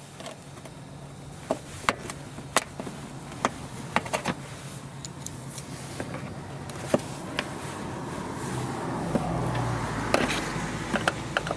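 Sharp plastic clicks and snaps, a dozen or so at uneven intervals, as push-in plastic retainer plugs are pried out of an engine-bay plastic cover with a plastic trim removal tool. A rustling, scraping noise builds up in the last few seconds.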